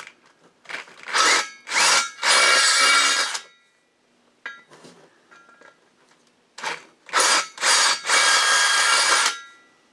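Cordless drill boring out a lug-nut hole in a steel wheel with the first, smaller of two DeWalt bits, cutting oiled steel. It comes in two bouts, each a few short trigger blips and then a longer whining run of about a second, with a quieter pause between them.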